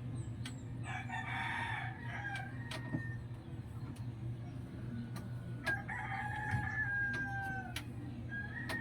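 A rooster crowing twice, each crow held about two seconds and dropping slightly in pitch at the end, with a third crow starting near the end, over a steady low hum.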